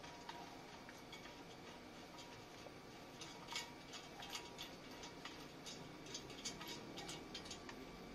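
Faint, irregular small metallic clicks and ticks of a bolt and washer being turned by hand on a scooter's engine case, the sharpest click about three and a half seconds in.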